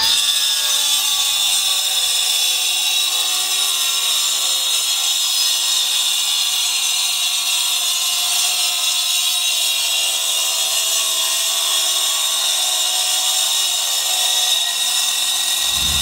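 Milwaukee M18 Fuel 9-inch cordless cutoff saw with a Milwaukee segmented diamond blade, wet-cutting a concrete paver slab. It gives a steady high-pitched whine at full speed, dipping slightly in pitch now and then as the blade is pushed through the cut.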